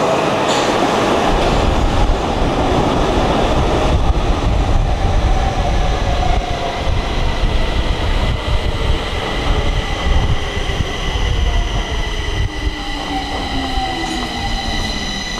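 Stockholm metro train pulling into an underground station and braking to a stop: a loud rumble of wheels on the rails, with a whine that falls steadily in pitch as the train slows and thin, steady high tones above it.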